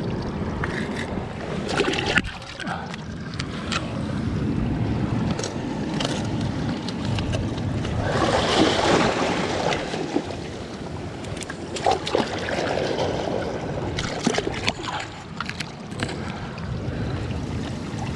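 Sea waves washing and wind on the microphone, with scattered knocks and clicks; a louder surge of water about eight seconds in.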